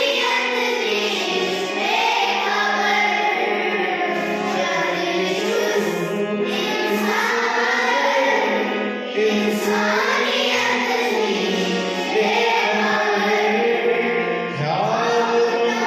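A group of children singing a song together in unison, one continuous sung line over a steady low held tone.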